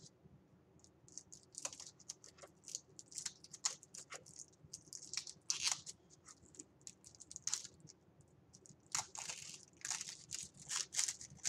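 Crinkling and scratching of plastic packaging, irregular short crackles, as hands work to open a small makeup palette.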